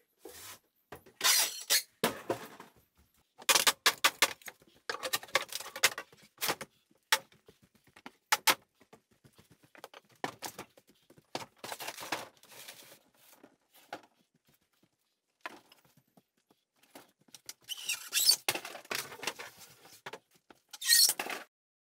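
Irregular bursts of clattering and scraping with squeaks, from old wooden furniture and household clutter being handled and cleared out.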